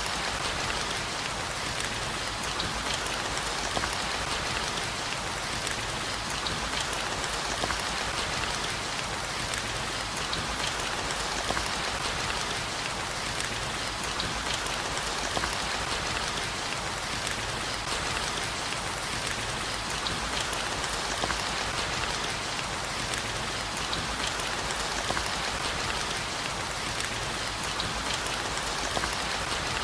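Steady heavy rain falling, an even hiss flecked with many fine drop ticks.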